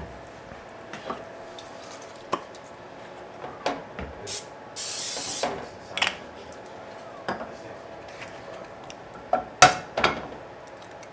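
Kitchen clatter of a frying pan and utensils on a gas stovetop, with a short hiss of cooking spray into the pan about five seconds in and a few sharp knocks near the end.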